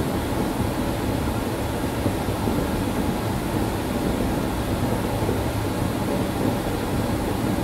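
Steady room noise: an even rushing hum with a low rumble beneath it, unchanging throughout.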